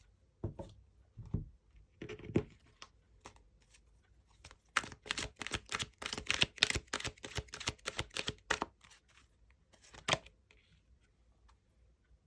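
Tarot cards being handled and shuffled: a few soft knocks, then a run of quick, crisp card flicks lasting about four seconds, and one more sharp snap near the end.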